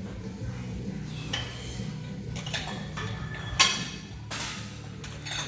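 Metal weight plates and barbell clanking: several sharp clinks over a few seconds, the loudest about three and a half seconds in, with low background music underneath.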